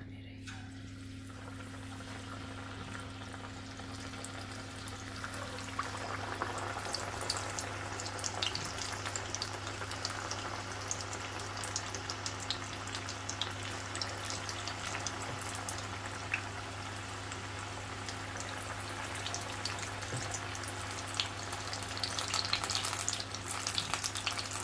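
Vegetable pakoras in gram-flour (besan) batter deep-frying in hot oil in a karahi: a steady sizzle full of small crackling pops. It builds over the first few seconds and grows louder and busier near the end as more batter goes into the oil.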